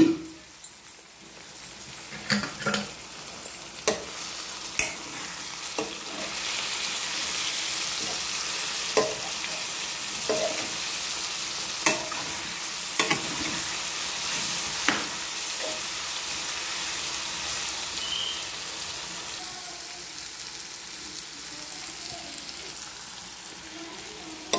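Potato and cucumber cubes sizzling in oil in a metal pan, stirred with a steel spoon that clicks and scrapes against the pan now and then. The sizzle grows louder about six seconds in.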